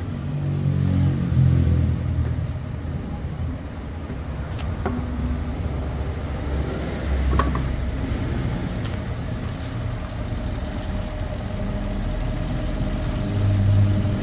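Toyota 1NR-FE four-cylinder engine idling as it warms up after a timing-chain replacement. A thin steady whine sits above the engine note in the second half, and there are a couple of brief clicks.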